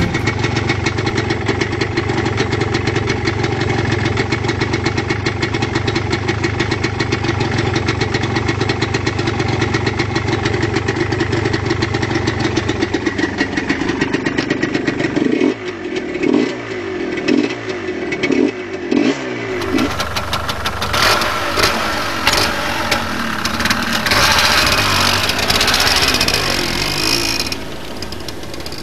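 Yamaha DT230 Lanza two-stroke single running: a steady idle, then a run of quick throttle blips rising and falling in pitch. After a cut, a second recording of the engine revving harder, loudest near the end.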